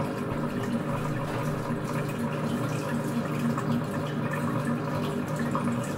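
Compact Cook Elite multicooker's motor running steadily with an even hum, its blade churning a liquid mix of red wine, browned onion and flour in the bowl.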